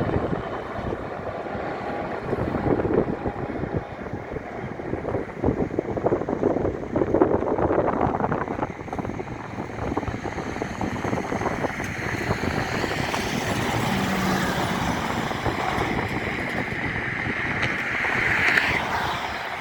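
Express passenger train running past at speed: a continuous rush of wheel-and-rail clatter, with a hiss rising over the last several seconds.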